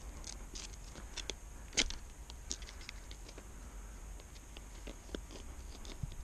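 Scattered light scrapes, clicks and rustles as a tarp stake is worked against rocky ground it won't go into, with one sharper click about two seconds in.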